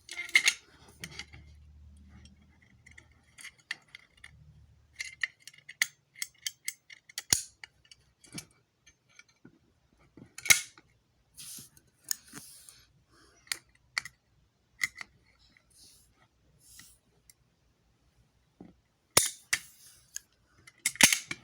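Irregular sharp clicks, knocks and short scrapes of hard plastic and metal parts as a Simplex fire alarm pull station is handled and pieces are fitted back onto it, with a cluster of louder knocks near the end.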